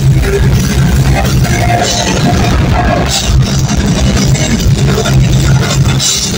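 Heavy metal band playing live and loud, heard from the crowd: distorted guitars and bass over drums.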